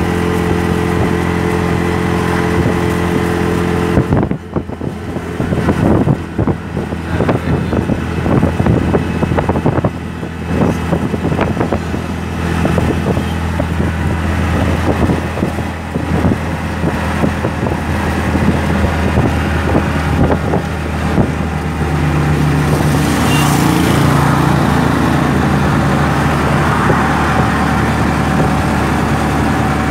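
Auto rickshaw engine running at high road speed, heard from inside the cab. From about four seconds in, irregular buffeting and flapping break over it for most of the time, then the engine tone settles back to steady near the end.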